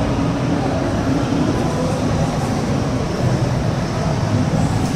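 Loud, steady din of a crowded exhibition hall, with a continuous low rumble and no distinct voices standing out.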